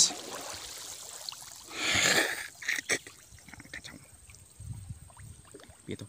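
Swamp water sloshing and splashing around a person wading chest-deep, with one louder surge of splashing about two seconds in, followed by a few sharp clicks and scattered small drips.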